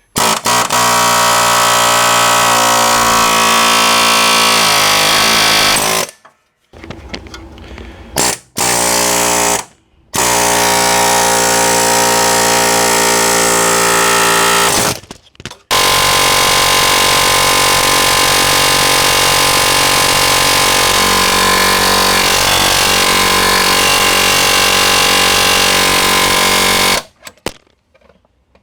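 Ingersoll Rand 114GQC pneumatic air hammer firing a chisel bit in loud, rapid buzzing runs: one of about six seconds, a couple of short bursts, one of about five seconds, then one of about eleven seconds, with brief pauses between. It is doing ball joint work, stripping rivet heads and separating joints.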